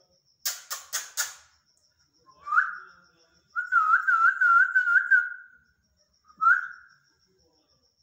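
Indian ringneck parakeet giving four quick harsh squawks, then whistling: a short rising whistle, a longer warbling whistle that wavers up and down about five times, and another short rising whistle.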